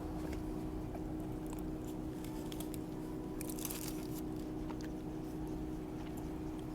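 A person chewing a mouthful of turkey and mac and cheese close to the microphone, with small wet mouth clicks and smacks scattered through, over a steady low hum.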